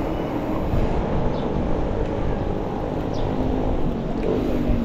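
Wind rushing over a handlebar-mounted camera's microphone while riding a bicycle, with a motor vehicle's engine hum underneath.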